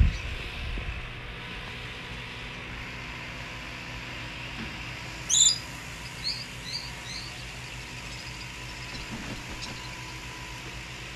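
A sharp, high animal squeak about halfway through, followed by three short high chirps, over a steady background hum.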